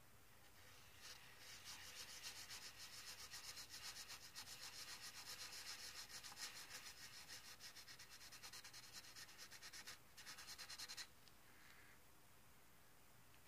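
Pencil scribbling on lined paper: quick, faint, scratchy circular shading strokes that break off briefly about ten seconds in and stop a second later.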